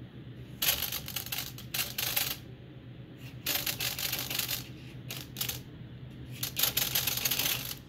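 Small RC servos whirring in five short bursts, driving the flying wing's control surfaces as the newly installed gyro stabilizer reacts.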